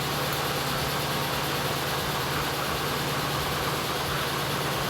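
VAZ-2114's four-cylinder petrol engine idling steadily, kept running by the remote-start alarm after the ignition has been switched off and the key removed.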